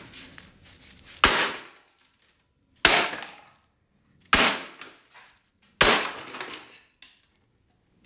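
A sledgehammer strikes a plastic coffee maker four times, about a second and a half apart, each blow cracking the housing and dying away over about half a second. A smaller knock follows near the end.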